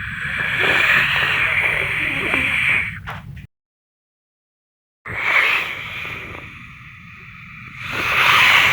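Wind sound effect: gusting wind, a rushing hiss over a low rumble that swells and eases. It cuts to dead silence for about a second and a half just past the middle, then resumes and swells again near the end.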